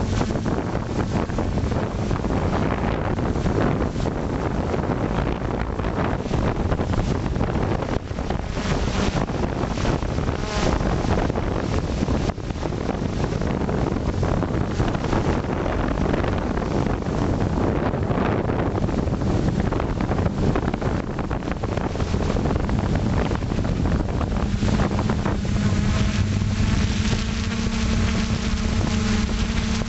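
Wind rushing over the onboard camera's microphone of a flying FPV drone, mixed with the steady hum of its motors and propellers. About 25 seconds in the motor hum becomes more distinct, with several steady tones.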